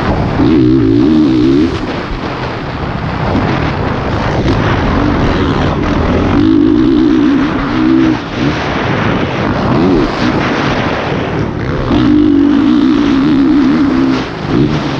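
Single-cylinder four-stroke engine of a Honda CRF450R motocross bike, ridden hard around a dirt track. The throttle is held wide open in three long pulls, near the start, about six seconds in and about twelve seconds in, and backed off between them. A steady rush of wind sounds over the helmet camera.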